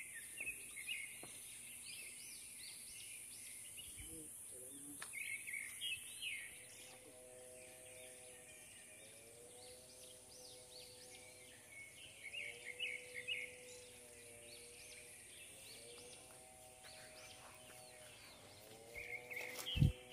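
Forest ambience: birds chirping in short bursts over a steady high hiss, with soft music joining about seven seconds in as a slow phrase that repeats every couple of seconds. A single loud thump comes near the end.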